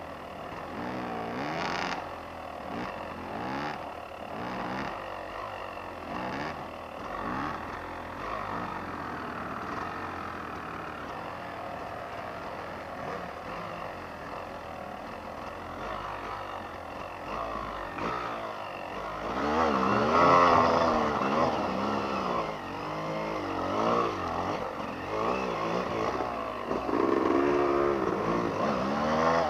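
Several two-stroke enduro motorcycle engines revving up and down in repeated bursts under load on a rocky climb. The revving gets louder about two-thirds of the way through.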